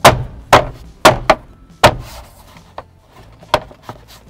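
Hands smacking down on a plastic rear-shelf trim panel to snap its clips into place: five sharp thumps in the first two seconds, then a couple of lighter knocks.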